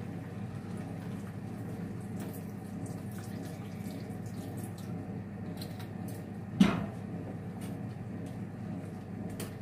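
Soy sauce poured from a bottle into a frying pan of squid cooking on a gas burner, over a steady low hum. A single sharp knock comes about two-thirds of the way in.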